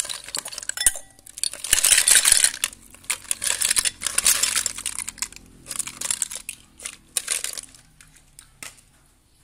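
Boiled snail shells clattering and clinking against each other and a bowl as they are tipped and scooped, in a few rattling bursts that die away near the end.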